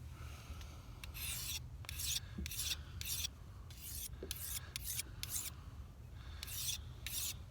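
Fillet knife blade drawn across a small whetstone in short repeated scraping strokes, about two a second, with a brief pause near the end: the edge being sharpened.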